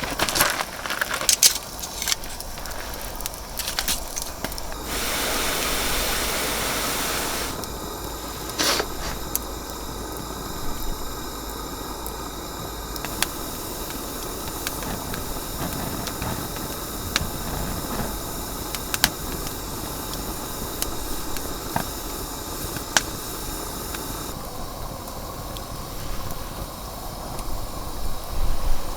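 Wood fire crackling in a mesh fire pit, with sharp pops scattered throughout over a steady rush of wind. About five seconds in, a louder hiss swells for about two and a half seconds.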